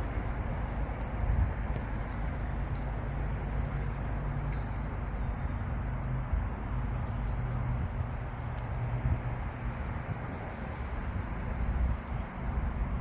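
A train's diesel engine running, a steady low hum under a broad rumble.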